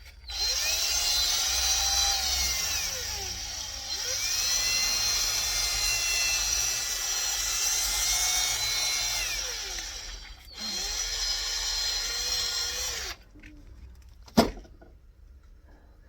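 A power tool's electric motor run in three long bursts, its pitch rising and falling with the trigger, then a single sharp knock near the end.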